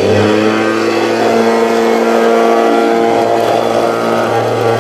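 Homemade cutter's 775 DC motor driving a metal-cutting wheel, which has just spun up and now runs steadily at full speed with a loud, even whine.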